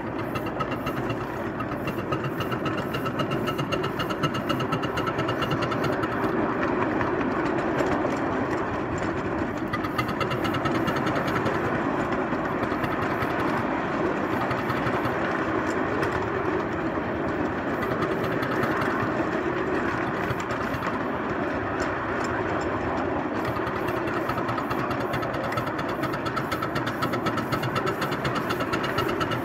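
Garden-scale 2-6-0 Mogul model locomotive running steadily along its track: a continuous mechanical running noise with a fast, fine rhythm, heard from on board the locomotive.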